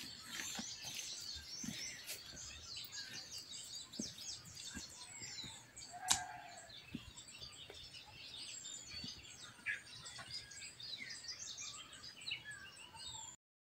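Songbirds chirping and calling all around in many short, quick notes, with faint footsteps on a dirt path.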